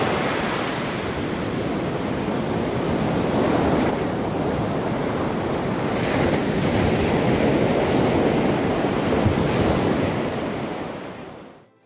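Sea surf breaking and washing up a sandy beach, swelling and easing in slow surges; it fades out near the end.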